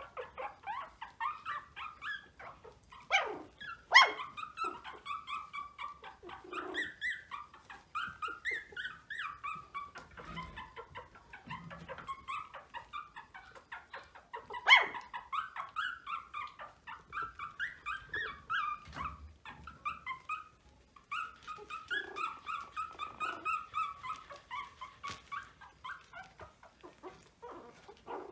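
Young Maltese puppies whimpering and squeaking: a near-continuous string of short, high cries, with a couple of louder, sharper cries about four seconds in and again near fifteen seconds.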